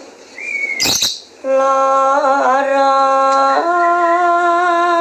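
A woman singing a slow song in long held notes. There is a short break about a second in, with a sharp click, and the pitch steps up about three and a half seconds in.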